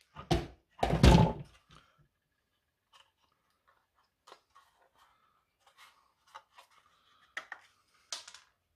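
Handling noise from a plastic 12 V fuse box being taken apart: a couple of knocks against the wooden workbench in the first second and a half, then faint, scattered clicks and scrapes of the plastic casing, with a sharper click near the end.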